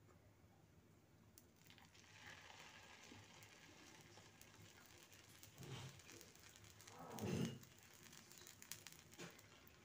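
Dosa batter sizzling faintly on a hot griddle, starting about a second and a half in as the batter is poured. Two dull knocks come near the middle, the second the loudest, followed by a few small clicks.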